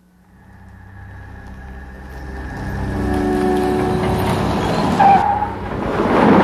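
Cars on a road: engine sound growing louder as vehicles approach, a short tyre squeal about five seconds in, then a truck rushing past close by, the loudest moment, in a near-miss.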